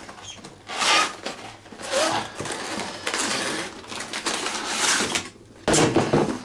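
Cardboard retail box being handled and opened, with rustling and scraping of the cardboard flaps and packing, and a louder thump near the end.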